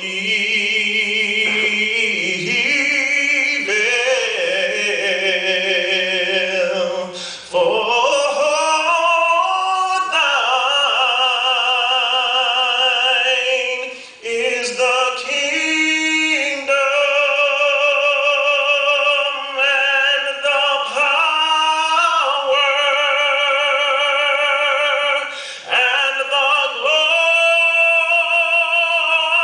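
A solo singer with a strong vibrato, holding long notes phrase after phrase in a slow song.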